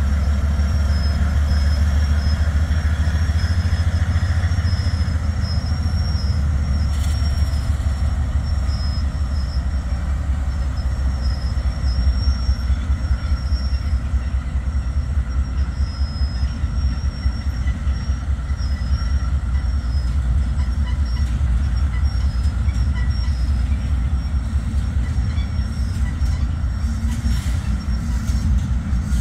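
A train rolling past: a steady, heavy low rumble of wheels on the rails, with a thin high tone held above it.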